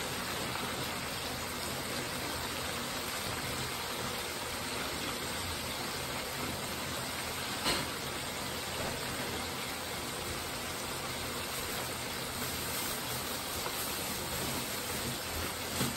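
Catfish nuggets frying in hot oil in a deep fryer: a steady sizzle, with one sharp click about halfway through.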